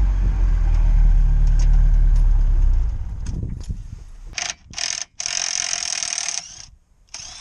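A vehicle engine running with a steady low rumble, which stops about three seconds in. Then four short bursts of high hissing, mechanical-sounding noise follow, the third the longest at about a second.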